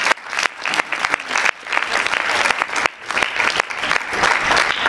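Audience applauding: scattered hand claps at first that fill out into fuller, steady applause.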